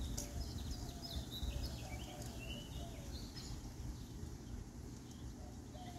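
Birds chirping and calling, busiest in the first few seconds, over a steady low background rumble.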